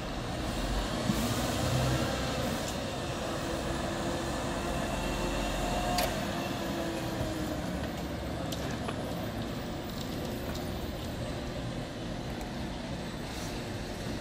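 Heavy engine running steadily, with a sharp click about six seconds in.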